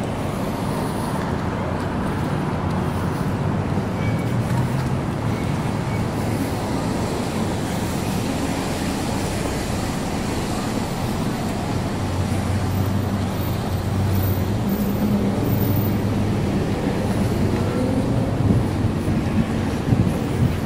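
Downtown street traffic noise: a steady wash of car engines and tyres on the road, with an engine's hum swelling briefly past the middle.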